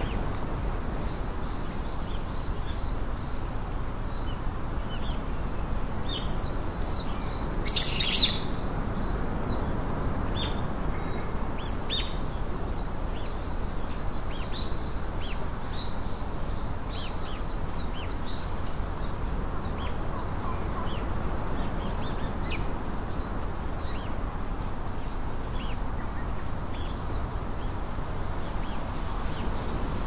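Small birds chirping in short, high calls scattered throughout, over a steady background hiss, with one brief, louder burst about eight seconds in.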